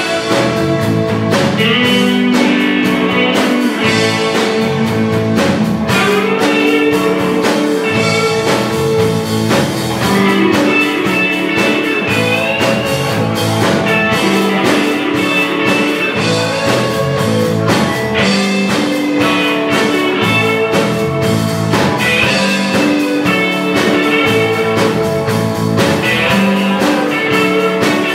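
A live rock band playing an instrumental passage: electric guitars, bass guitar and drum kit, with a lead guitar line bending over the rhythm.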